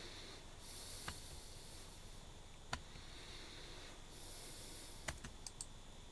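Faint clicks of keys on an ELECOM TK-FBP030 Bluetooth keyboard, over a steady hiss. There is one click about a second in, another near the middle, and a quick run of about four near the end.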